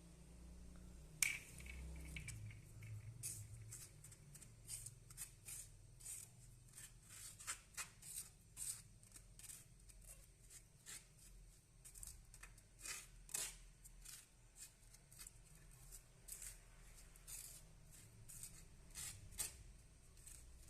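A sharp click about a second in, then a run of irregular short clicks and rustles, one to three a second.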